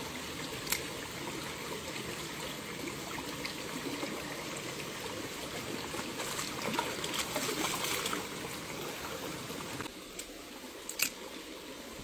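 Shallow rocky stream trickling and running over stones, steady throughout and quieter for the last couple of seconds. A sharp click comes about a second in and a louder one near the end.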